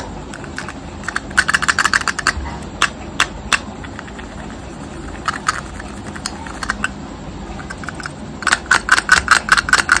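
Long fingernails tapping and clicking on a small clear plastic jar, in short bursts of quick taps with a denser, faster run of taps near the end.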